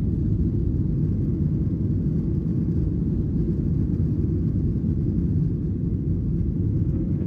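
Steady low rumble of a Boeing 737-800 heard from inside the passenger cabin: engine and airflow noise with no change in pitch.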